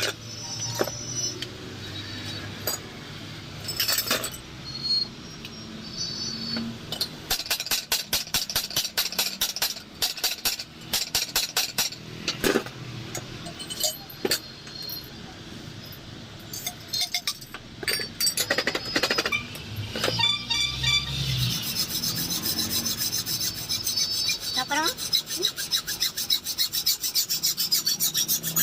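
Hand work on a car shock absorber's metal parts: repeated rubbing and scraping strokes with many small clicks and taps. About three-quarters of the way in, a steady rasping hiss takes over.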